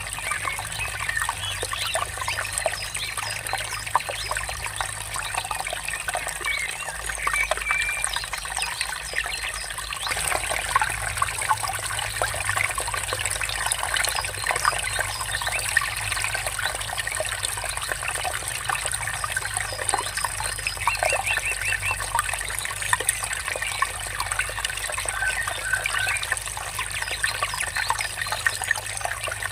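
Water trickling and splashing steadily over stones, with small birds chirping now and then over it.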